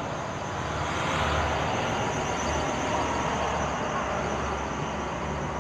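Steady rumble and noise of road traffic, swelling louder about a second in.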